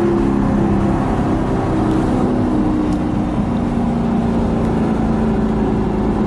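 Audi R8 engine through its aftermarket Armytrix exhaust, heard from inside the cabin while driving: a steady engine note that rises and falls a little in pitch.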